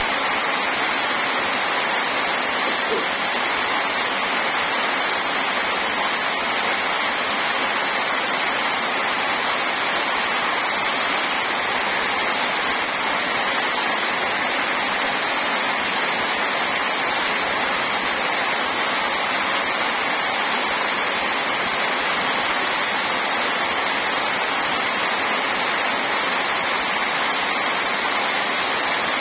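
Heavy rain pouring steadily onto waterlogged ground and puddles, a dense, even hiss that does not let up.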